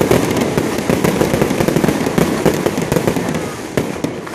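Aerial fireworks going off in a rapid, dense string of bangs and crackles, easing off slightly near the end.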